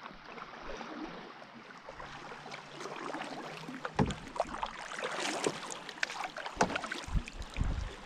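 Canoe being paddled: water splashing and dripping from the paddle, with irregular small clicks and a few heavier knocks against the canoe, the loudest about four seconds in.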